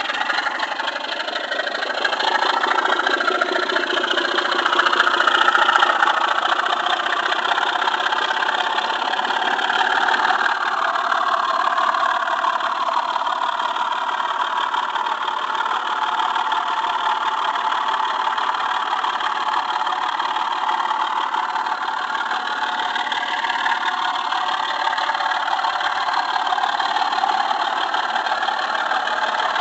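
Model railway train running along the track, a steady whirring rumble of the wheels on the rails with a motor whine that wavers in pitch, heard from a camera riding on the train.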